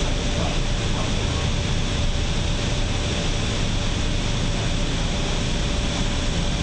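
Cabin noise of an electric shuttle bus driving along: a steady low rumble from the road and running gear, with a faint constant tone.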